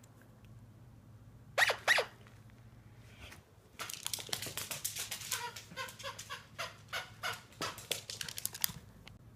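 A miniature schnauzer gives two short, high yips. Then, from about four seconds in, comes a long run of quick sharp clicks: the dog's claws on a hardwood floor as it runs about with a plush toy.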